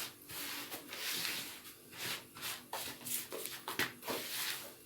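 A spoon or spatula stirring and rubbing grated lemon zest into granulated sugar in a bowl, making repeated irregular gritty scraping strokes.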